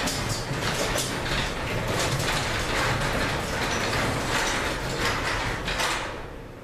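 Chamberlain PD222 garage door opener driving the door down, the motor and drive running while the door pops and jerks along its track, until it stops about six seconds in. The popping and jerking come from a door that needs lubrication and adjustment.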